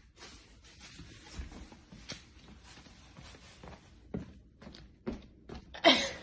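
Faint, scattered footsteps and shoe scuffs on a hardwood floor, with a louder short burst of sound near the end.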